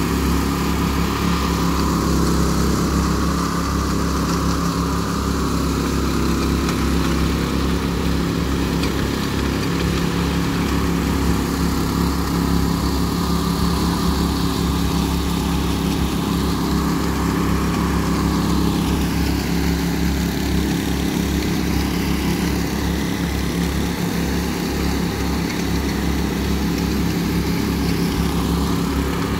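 Petrol-engined walk-behind power trowels (helicopter trowels) running steadily while they float fresh concrete, with the nearest machine the loudest and others running behind it.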